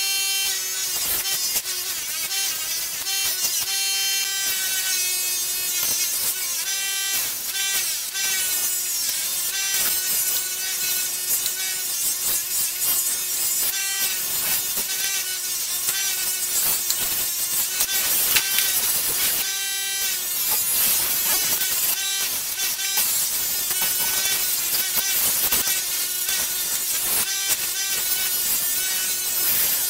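Bulle 6-inch bench polisher running steadily, its buffing wheel whirring and hissing against a steel machete blade pressed to it for polishing.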